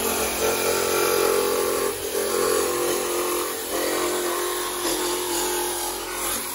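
Festool Carvex cordless jigsaw running steadily, its blade sawing through a thin boat deck.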